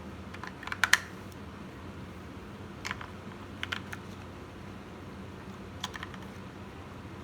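Small hard plastic clicks as batteries are fitted into a Dymo label maker's battery compartment: a quick cluster of clicks about a second in, then a few single clicks spread through the rest.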